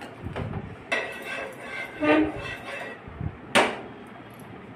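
Steel kitchenware being handled next to a griddle: a few sharp metal clicks and knocks with brief ringing, the loudest knock about three and a half seconds in.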